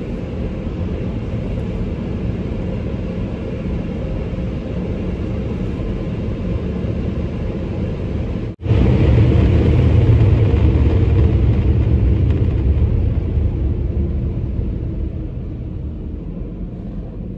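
Automatic car wash equipment running steadily, heard from inside the car as a loud low rumble. It cuts out for an instant about eight and a half seconds in, comes back louder, then slowly fades toward the end.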